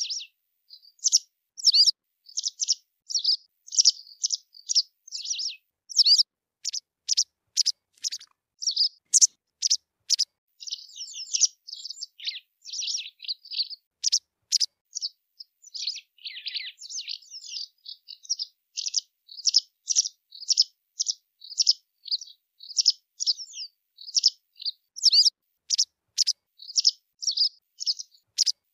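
White wagtail calling and twittering: a long series of short, sharp high chirps, about two a second, broken by a few stretches of quicker twittering in the middle.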